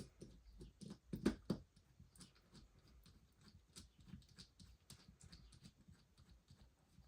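Small clicks and knocks of the parts of a disassembled airsoft gas blowback pistol being handled and fitted, with two louder knocks a little over a second in.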